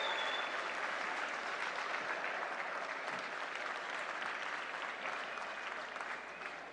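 Audience applauding, slowly dying away toward the end.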